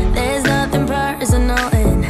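Background pop/R&B song with a steady beat and deep bass notes that slide down in pitch.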